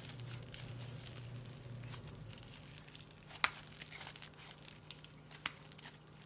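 Quiet handling of a homemade slime and its plastic container: soft crinkling and tearing noises with two sharp clicks.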